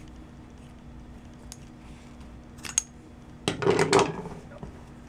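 Scissors snipping through the tag ends of 550 paracord close to a finished bracelet: a few faint clicks, then a louder cluster of snips and rustling about three and a half seconds in.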